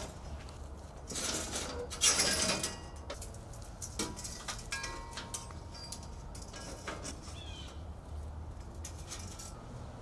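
Light rustling and metallic clinks of a steel bandsaw blade being handled and lifted off the wheels of a bandsaw mill. Two short scraping spells come in the first three seconds, then a few scattered clicks.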